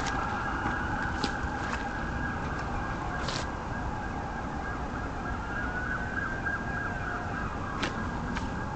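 A siren wailing with slow rising and falling pitch glides, over a steady low rumble and a few scattered clicks.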